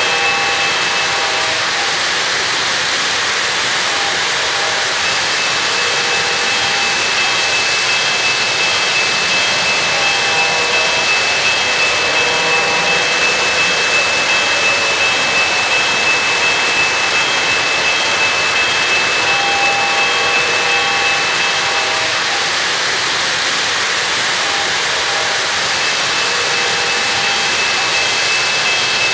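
O-gauge three-rail model trains running around the layout: a loud, steady rolling rumble of wheels on the track, with a thin high whine that drops out for a few seconds near the start.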